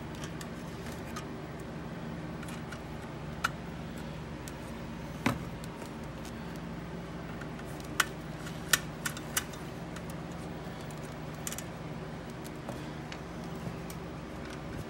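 Hands handling a hard drive's controller board and ribbon cables: a handful of short, sharp clicks and taps of plastic and metal parts, over a steady low hum.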